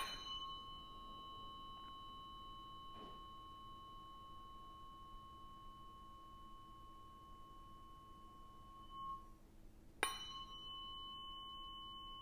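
A tuning fork is struck and left to ring as a long, pure, steady tone. About ten seconds later it is struck again and rings on. The fork is being used for Biofield Tuning sound healing, passed through the field around the body.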